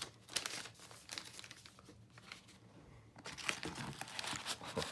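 Packaging wrap crinkling and rustling as a parcel is unwrapped by hand, in two spells: one at the start and a louder one from about two-thirds through.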